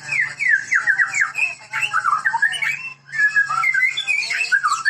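White-rumped shama (Medan murai batu) in full song: a quick run of loud downslurred whistles, then varied, rich warbled phrases, a brief pause about three seconds in, and another burst of song.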